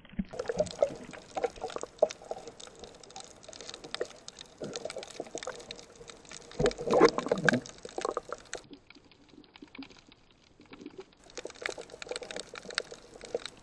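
Water splashing and gurgling, full of quick small crackles, with a louder surge of sloshing about seven seconds in.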